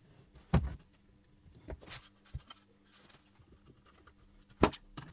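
A few light knocks and taps of wooden box parts and a plastic glue bottle handled on a workbench while pine boards are glued together. A sharper double knock comes near the end.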